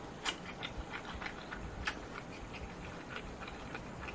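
Close-miked chewing of a mouthful of tofu with the lips closed: faint, scattered small wet clicks from the mouth.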